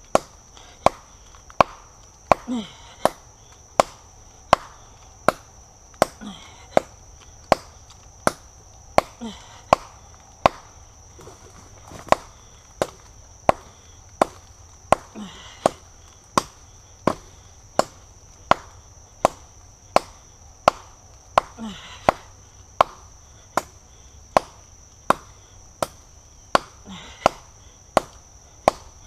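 Glock 78 field knife's steel blade chopping into a rotten tree trunk, striking in a steady rhythm of about four chops every three seconds.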